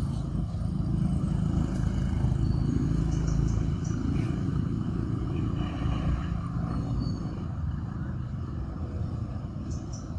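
Low, steady engine rumble of an unseen motor vehicle, swelling about a second in and slowly easing off in the second half.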